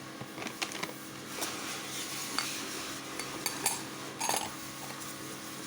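A spoon clinking and scraping against a dish in a string of short, irregular knocks as sugar is spooned into hollowed-out radishes, over a faint steady hum.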